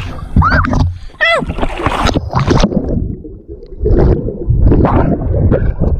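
Muffled churning and gurgling water around a waterproof camera as it goes under the pool surface. There are two brief high vocal cries in the first second or so.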